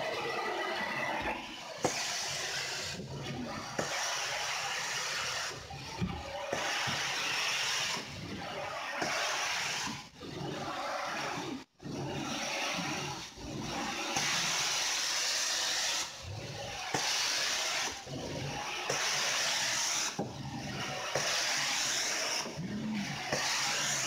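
Carpet scrubbing tool with a triangular head on a long pole, rubbed back and forth over damp carpet spots: a rough rushing scrub in repeated strokes, about one every one and a half to two seconds, with a few light knocks of the tool.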